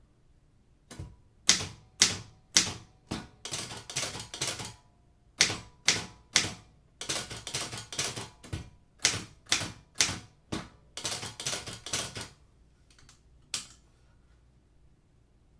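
Underwood manual typewriter keys striking in uneven runs of quick strokes, mixed with single hard strokes. The typing starts about a second in and stops near the end.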